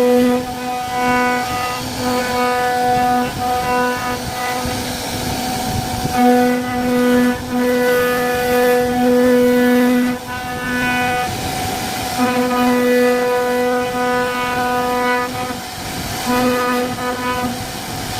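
Syfing CNC router carving a wooden door panel: a steady, constant-pitched machine hum over cutting noise, breaking off and coming back repeatedly as the machine works.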